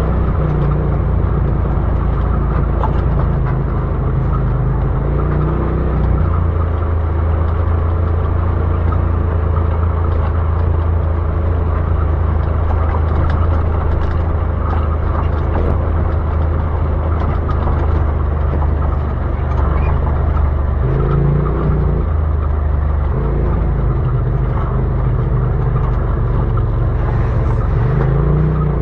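Side-by-side UTV engine running while driving, a steady drone whose pitch shifts with the throttle, with brief rises in engine speed a little over two-thirds through and again near the end.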